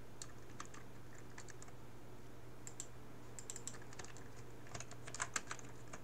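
Typing on a computer keyboard: a few scattered single keystrokes, then quicker clusters of key clicks in the second half. A faint steady hum runs underneath.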